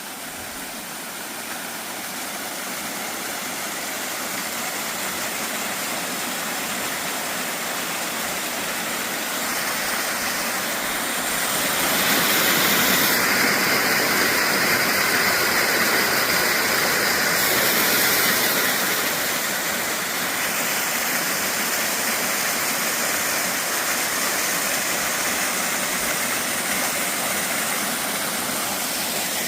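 Steady rush of a waterfall, building gradually and loudest around the middle, then easing a little.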